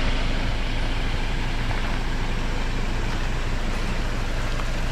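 Jeep's engine running steadily: a low, even hum under a broad rushing noise.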